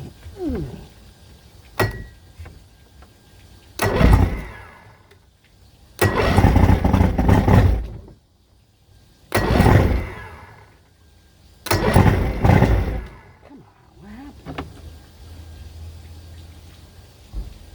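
Boat motor being started again and again: four times it fires and runs for a second or two, then dies. The owner wonders whether this is fuel starvation, from running out of gas or from air getting into the fuel system.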